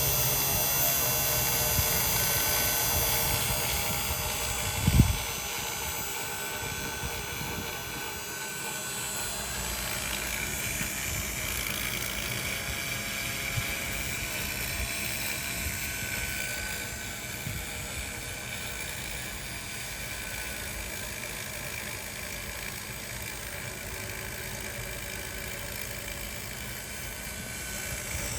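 3018 Pro CNC router's spindle running steadily with a high, even whine while milling a copper-clad PCB, with a single thump about five seconds in.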